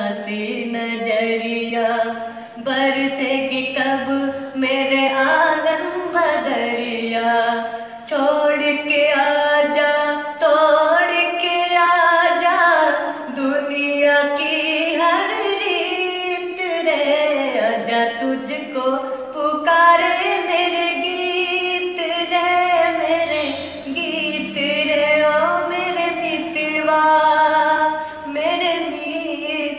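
A man singing a slow Hindi film-style song, with long held notes that slide up and down in pitch.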